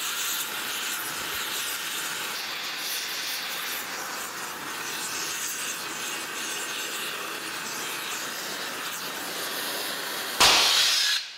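Oxy-fuel torch flame hissing steadily as it heats a bearing cap to melt the Babbitt bearing metal out, with old grease and oil burning off. Near the end there is a short, loud burst, and then the hiss stops.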